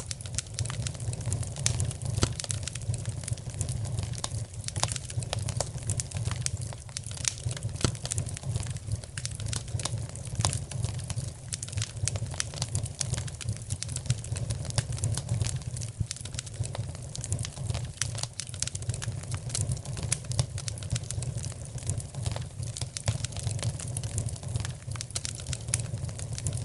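Wood fire crackling in a fireplace: irregular snaps and pops, several a second, over a steady low rumble.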